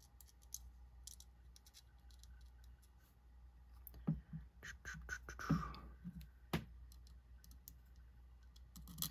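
Faint, scattered clicks and taps of small metal knife parts and a screw being handled and fitted while a folding knife is put back together, busier around the middle, with one sharper click about six and a half seconds in.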